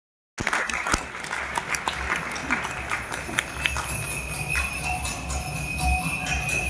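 Bells jingling with scattered sharp clicks and a steady high ringing, at moderate level, before the music comes in.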